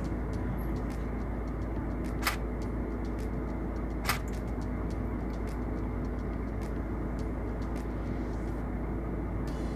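Steady low rumbling noise, with two sharp clicks about two and four seconds in.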